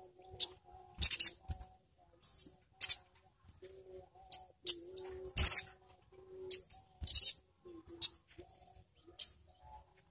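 A sogon (sogok ontong) sunbird calling with sharp, very high-pitched chirps. The chirps come singly and in quick clusters of two or three, at irregular intervals.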